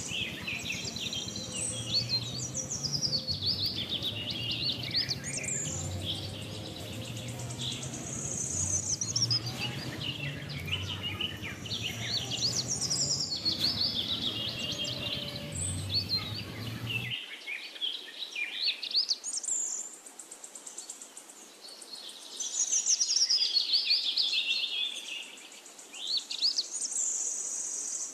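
Songbirds chirping and warbling continuously, many quick calls overlapping. A low hum runs underneath and cuts off abruptly about 17 seconds in.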